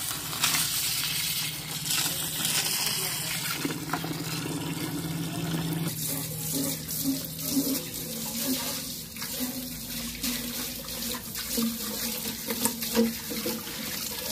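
A stream of water from a hose splashes into a plastic tub full of aquarium gravel and coloured stones. About six seconds in it changes to water pouring over and through an empty glass fish tank as it is rinsed.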